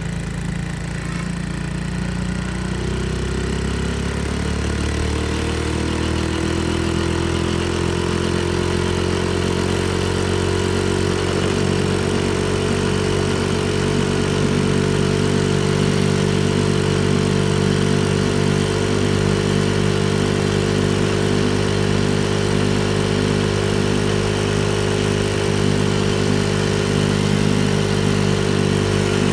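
Honda Monkey minibike's small single-cylinder four-stroke engine running under way, its valves freshly adjusted. The revs climb over the first several seconds, then hold at a steady cruise.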